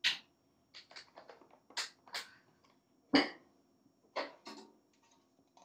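Handling noises on a wooden workbench: several short knocks and light rustles as a plastic dish soap bottle and a plastic bag are set down and moved around, the loudest knock a little after three seconds in.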